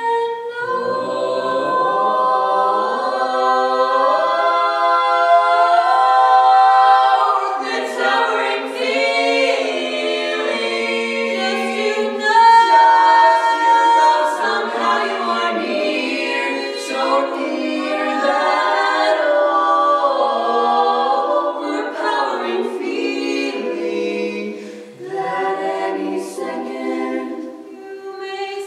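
A mixed quartet of three women and one man singing a cappella in four-part harmony.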